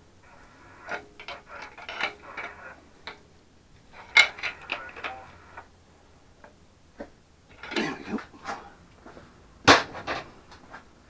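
Metal hand tools and engine parts clinking and rattling during an engine teardown: bursts of clatter and ticking clicks, then one sharp metal knock near the end that is the loudest sound.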